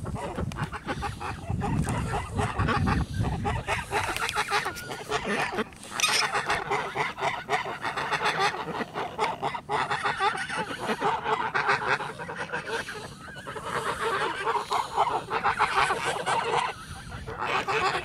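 A flock of domestic ducks and geese calling: many overlapping quacks and honks without a break.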